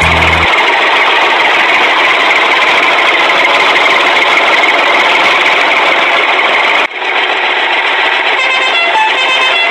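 Steady, loud dumper-truck engine noise that cuts off abruptly about seven seconds in. After the cut a plucked-guitar tune comes in.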